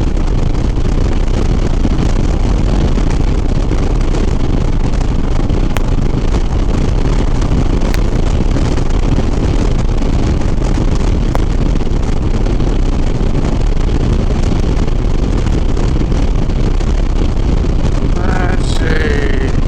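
Harley-Davidson Sport Glide V-twin running steadily at highway cruising speed, with heavy wind rushing over the rider's helmet microphone.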